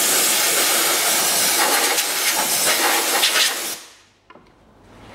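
Compressed-air blow gun blowing dust out of an engine's air filter housing: a loud, steady hiss for nearly four seconds that then dies away quickly.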